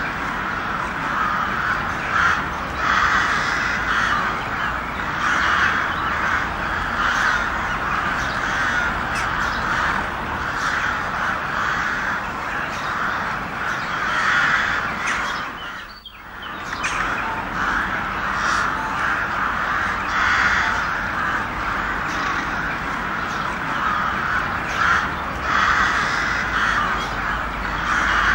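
A flock of crows cawing, many harsh calls overlapping into a dense, continuous din, with a brief gap about halfway through.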